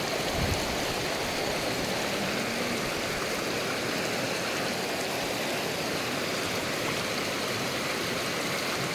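Mountain stream running steadily over stones: an even rush of water.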